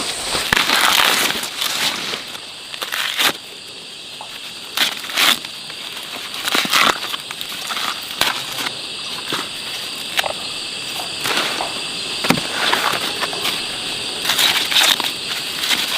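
Dry vegetation crunching and rustling in irregular bursts, over a steady high-pitched drone.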